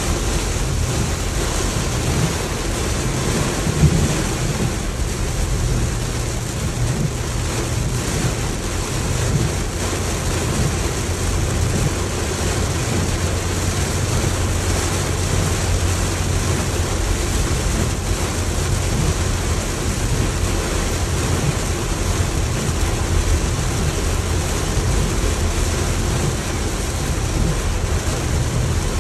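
Heavy rain pelting a car's roof and windshield, heard from inside the moving car, over a steady low rumble from the car on the road.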